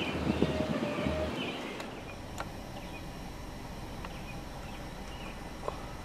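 Outdoor ambience with faint, short bird chirps over a steady background hiss. It gets quieter about a second and a half in, and a few soft clicks follow.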